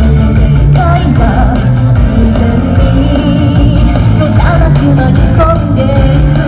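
Live concert music played loud through a PA: a singer's voice over amplified backing with strong bass.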